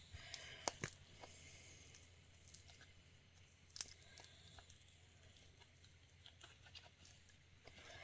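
Near silence with a few faint clicks and soft handling noises from a silicone mold of cured epoxy resin being handled for demolding; most of the clicks fall in the first second, with one more about four seconds in.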